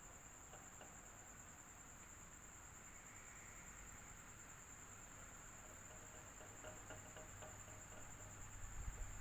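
Faint, steady electric fan noise: an even hiss with a constant high-pitched whine over it, and a few soft low bumps near the end.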